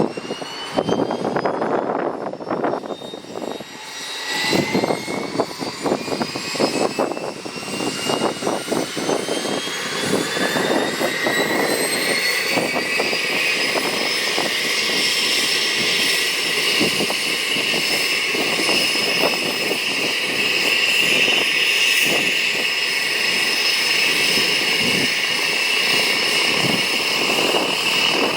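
Cessna 208 Caravan's Pratt & Whitney PT6A turboprop and propeller powering up for departure: a high turbine whine rises in pitch over the first dozen seconds, then holds steady as the engine and propeller noise grows louder, over a rough, uneven rumble.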